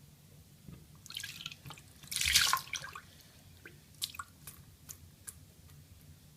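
Water splashing briefly about two seconds in, with a softer wash just before it and then a few scattered drips, as in wetting things for lathering shaving soap.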